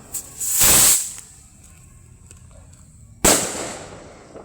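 Kwitis bottle rocket firing: a short rushing hiss as it goes off, then a sharp bang a little over three seconds in that dies away over about a second.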